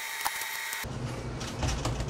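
Light clicks and knocks of a new radiator's plastic end tanks and tabs being pressed into a plastic radiator core support, over a steady shop background that changes abruptly from a high hiss to a low hum about a second in.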